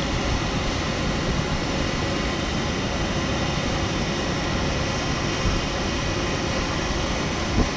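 Siemens Taurus (ÖBB class 1116) electric locomotive standing with its cooling blowers running: a steady rush of air with faint steady tones over it.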